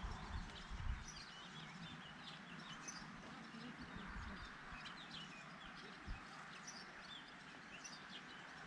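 Small birds chirping in quick, scattered short calls over a faint steady background hiss, with a soft low thump about six seconds in.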